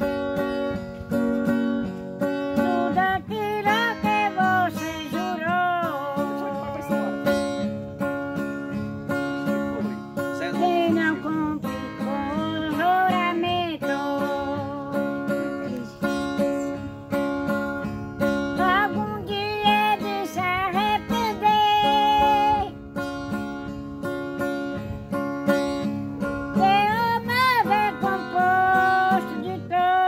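Acoustic guitar strummed as accompaniment to an elderly woman singing a song, her voice wavering in pitch, with a short break in the singing midway while the guitar plays on.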